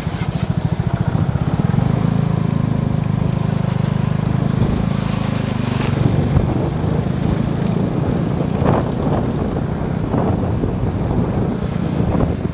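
Vespa GTS 250 i.e. scooter's single-cylinder four-stroke engine running steadily at low speed in traffic, with wind noise on the microphone.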